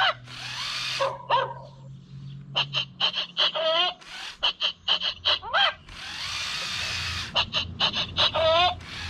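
Battery-powered toy robot dog walking under remote control: its gear motors whir and click while its speaker plays electronic barks and yips.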